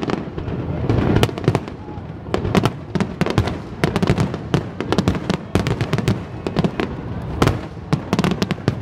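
Aerial fireworks shells bursting in a rapid, unbroken barrage, several sharp bangs a second overlapping one another.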